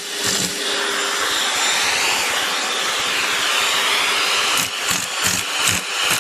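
Vacuum cleaner running with a steady whooshing hum. Near the end, a quick run of short knocks or rustles cuts through it.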